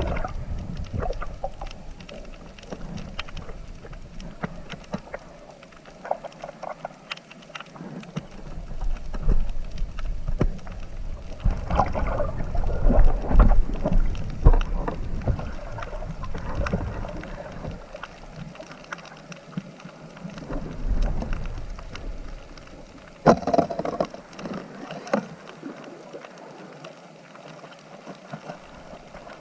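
Water sloshing and splashing with irregular low rumbling bumps, swelling in the middle, and a sharper splash about 23 seconds in.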